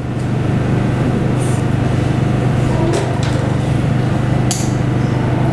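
A steady, loud, low-pitched hum, with a few faint clicks about every second and a half.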